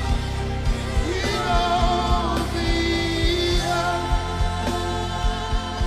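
Live gospel worship music: a voice singing long, sliding wordless notes over held chords, with a low drum beat thumping about twice a second.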